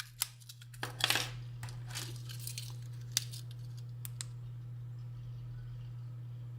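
A small plastic remote key fob being picked up and handled: a few sharp clicks and brief rustling in the first four seconds. A steady low hum runs underneath throughout.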